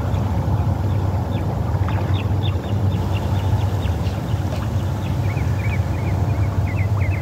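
Steady low rumble of wind buffeting the microphone, with small birds chirping in short rapid notes that grow busier in the second half.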